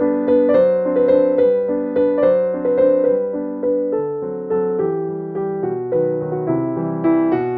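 Background piano music: a gentle melody of struck notes, each one fading before the next, a few notes a second.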